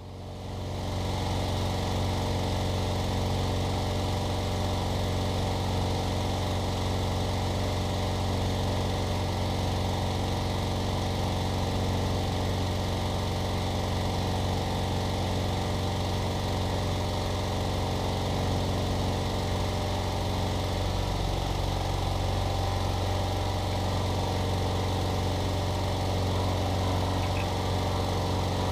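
Engine-driven Trac Vac debris vacuum running steadily at a constant speed, its engine and impeller droning with a strong low hum. The sound fades in over the first second and then holds level.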